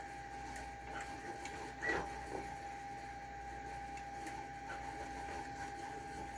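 Hex key and bolts working loose on a 3D printer's frame during disassembly: small clicks and rattles, with one louder clank about two seconds in. A faint steady high whine runs underneath.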